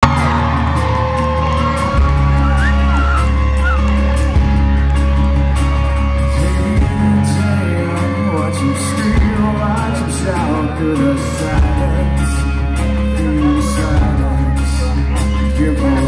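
Live rock band playing a song's instrumental intro loudly through a concert PA. Deep bass notes are held for a few seconds each under electric guitars and drums.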